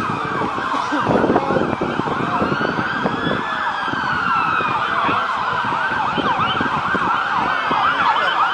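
Several fire apparatus sirens sounding at once from a distance: slow rising and falling wails overlapping a fast yelp that starts about halfway through, with wind buffeting the microphone.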